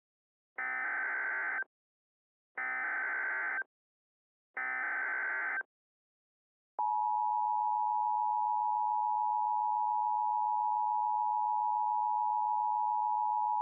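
Emergency Alert System SAME header: three one-second bursts of warbling data tones, about two seconds apart. About seven seconds in, the steady two-tone EAS attention signal starts and holds without a break, marking the start of a new alert.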